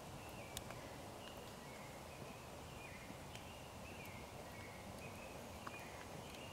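Quiet crackle of a wood campfire, a few scattered small pops over a low steady hiss, with bacon strips roasting on a stick above the flames. Faint short bird chirps come and go.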